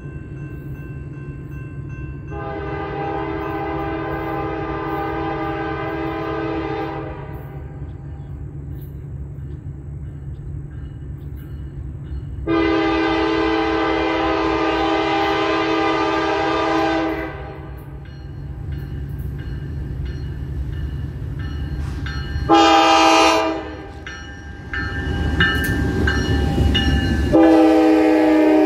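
Norfolk Southern diesel freight locomotive's chord horn sounding the grade-crossing signal: two long blasts, a short one, and a final long blast starting near the end. Under the horn the diesel engines rumble steadily, growing loud as the locomotives pass just before the last blast.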